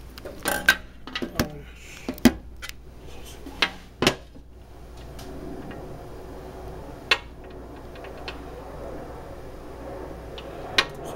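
Sharp knocks and clatters of hard objects being handled and set down on a hard kitchen countertop, several in quick succession over the first four seconds, then a few single clicks. A faint steady hum sits underneath, a little louder from about halfway.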